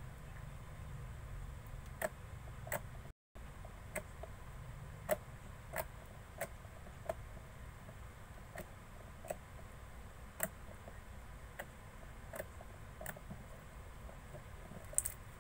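Slime being squished and pressed by hand, giving small sharp pops and clicks at an uneven pace of about one or two a second.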